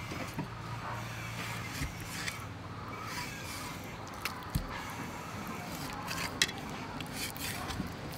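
Raw chicken pieces being handled and pressed on a wooden chopping block: soft rubbing and scraping with scattered light taps and knocks, and a duller thump about four and a half seconds in.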